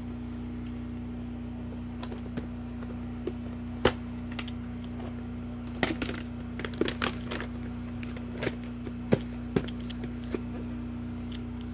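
A VHS cassette and its plastic clamshell case being handled: scattered sharp plastic clicks and taps, one about four seconds in and a cluster between six and seven seconds, over a steady low hum.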